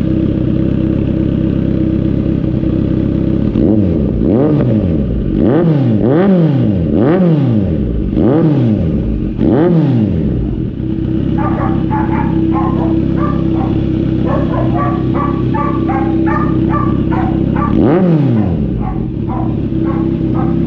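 Kawasaki Z900 SE inline-four idling through a newly fitted Austin Racing slip-on exhaust, blipped about six times in quick succession, each rev rising and falling straight back to idle, then revved once more near the end. A dog barks repeatedly in the second half.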